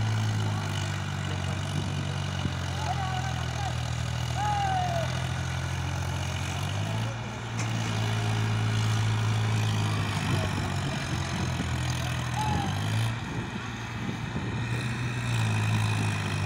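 Powertrac 39 hp tractor's diesel engine running under load, hitched to a loaded trailer stuck in mud. Its note shifts a couple of times, about seven seconds in and again near thirteen seconds.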